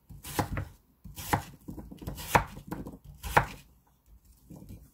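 Chef's knife chopping Korean radish into cubes on a wooden cutting board: sharp chops about a second apart, four strong ones with lighter ones between.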